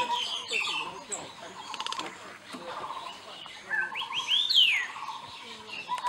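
Birds chirping and calling, with a rapid trill coming back again and again and a few quick descending whistled notes about four and a half seconds in.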